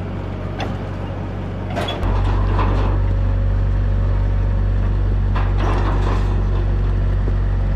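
Skid steer engine running steadily under load, getting louder about two seconds in, with metal clanks and rattles from the old truck as it is dragged along.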